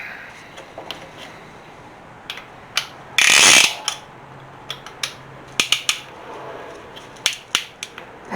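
Metal clicking and ratcheting as a piston ring compressor is worked on a piston, with one loud rasp lasting about half a second a little after three seconds in.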